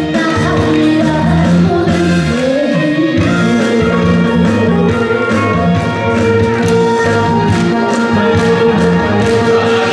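A boy's singing voice performing a trot song into a microphone over a recorded backing track, the accompaniment carrying on with long held notes in the second half.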